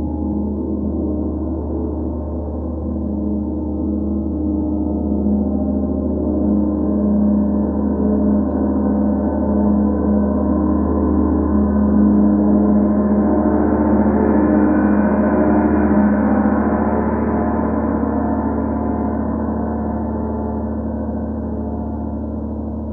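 32-inch Sri Yantra gong played softly and continuously with small lollipop-head mallets. It builds a sustained, shimmering wash of overtones that swells to its loudest and brightest about two-thirds through, then eases off a little.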